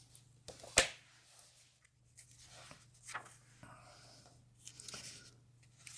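Comic books being handled and set aside: a sharp tap a little under a second in, then several bouts of soft paper rustling.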